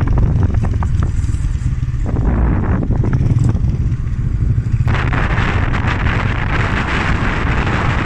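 Motorcycles riding along a road, with engine rumble and wind buffeting on the microphone; the rushing wind noise grows louder about five seconds in.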